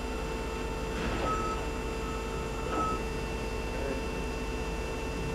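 Daewoo Pro-Turn 60/2500 CNC lathe spindle running steadily in its high gear range: a quiet, even hum with a constant whine. There are a few short, high beeps about one and three seconds in.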